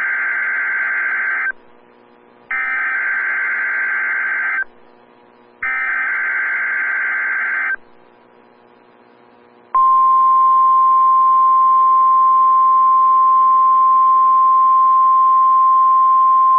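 NOAA Weather Radio Emergency Alert System test signal: three buzzy, screeching digital SAME header bursts of about two seconds each, a second apart. About ten seconds in, the 1050 Hz warning alarm tone begins, one steady high tone.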